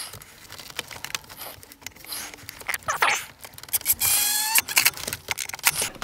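Makita cordless impact driver run in short bursts to drive the mounting screws home, the longest burst a brief whine about four seconds in, with small clicks and rattles of the tool and parts between.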